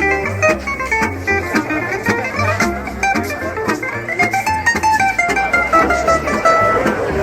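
Music led by plucked guitar over a steady bass line.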